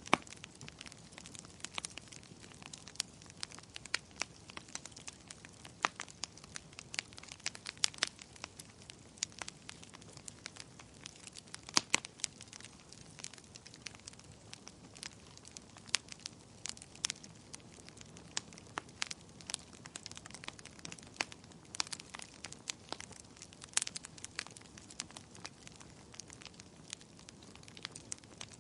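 A fire crackling, with irregular sharp pops several times a second over a soft steady hiss. A few pops stand out louder, the loudest about twelve seconds in.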